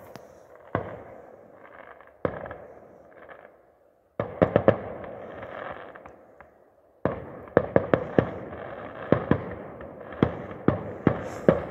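Fireworks going off: a run of sharp bangs, a few spaced out at first and then many in quick succession in the second half.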